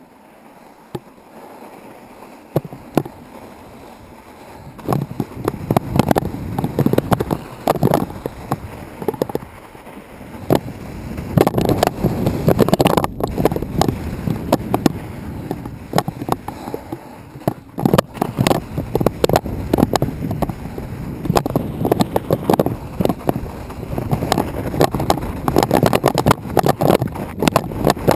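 Wind buffeting the camera's microphone in uneven gusts. It grows louder about five seconds in.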